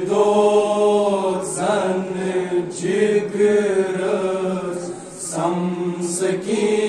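Voices chanting a Kashmiri noha, a Muharram lament, in long held notes broken by short pauses between phrases.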